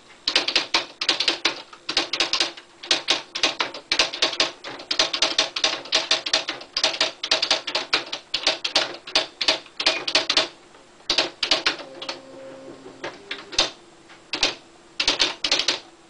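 Typing on a Smith Corona SD750 electronic typewriter: a fast run of sharp key clacks that thins out to scattered strokes after about ten seconds, with a short steady hum around twelve seconds in.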